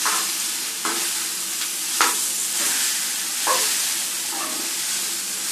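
Tamarind-soaked rice sizzling as it fries in oil in a nonstick pan, stirred with a slotted metal spatula that scrapes the pan a few times.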